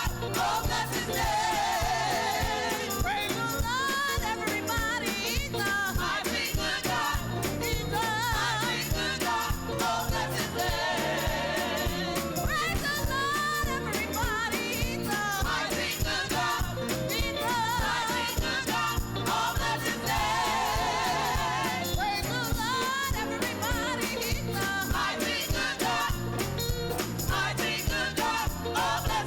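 Live gospel music: voices singing with wide vibrato over a band, with jingling percussion keeping a steady beat.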